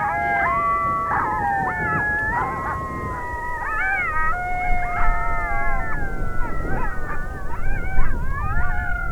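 Coyote howls and yips, several voices overlapping in a group chorus with wavering, gliding pitches, over a low rumbling background noise.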